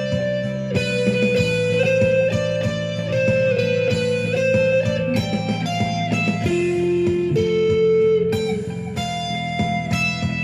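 Instrumental rock music: an electric guitar plays a melody of held, ringing notes, changing about once a second, over a steady low bass and chordal backing.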